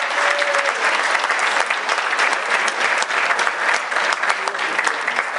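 Audience applauding steadily, with a faint voice underneath.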